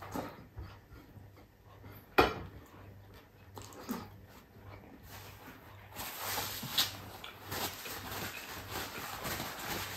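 Close-up eating with the hands: chewing and lip-smacking on crispy fried galunggong, with one sharp click about two seconds in. From about six seconds in, the crinkling rustle of a paper towel being handled takes over.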